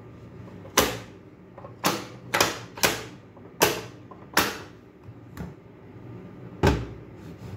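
Plastic pop-up figures on a children's pop-up toy clicking as they are pushed back down and latch shut: six sharp clicks in irregular succession, a fainter one, then a heavier knock with a low thud near the end.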